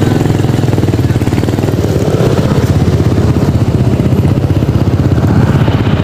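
Motorcycle engine running steadily, a rapid, even putter of firing pulses.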